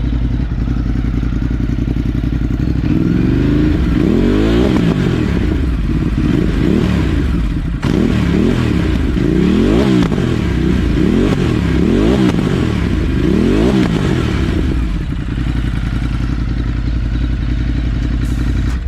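2018 Ducati Multistrada 950's L-twin engine running through a LeoVince de-cat pipe, pretty loud. It idles, is blipped up and down about a dozen times in quick succession, then settles back to idle. Little puffs come from the exhaust when the throttle closes, which the owner puts down to the full-exhaust map not yet being loaded on the Power Commander.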